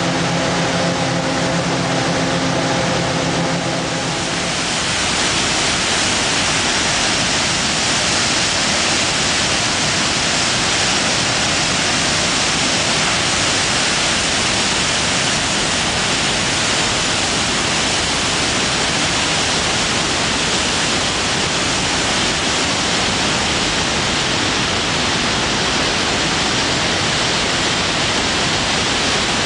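Steady rush of water pouring over a concrete dam spillway. For the first four or so seconds it is instead water jetting from a hydroelectric powerhouse's outlets, with a steady machine hum from the plant that stops abruptly.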